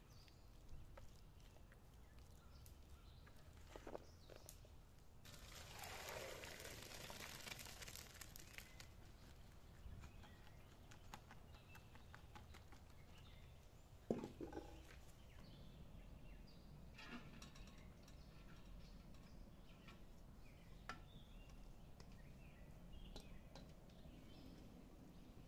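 Faint cooking sounds: boiled rice and its water tipped from a metal pot into a steel colander, with a few seconds of rushing pour about six seconds in and a single sharp metal clank about fourteen seconds in. Faint scattered knocks and ticks of pots and utensils follow.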